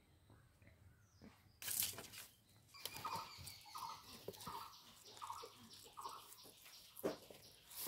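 Baby rabbit squeaking: a row of short, faint squeaks at a steady pitch, about one every three quarters of a second, among rustling and scuffling as the kits are handled in the cage.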